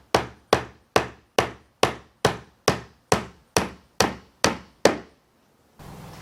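Hammer driving finishing nails into a wooden door frame: a steady run of about a dozen sharp, ringing blows, a little over two a second, that stops about five seconds in.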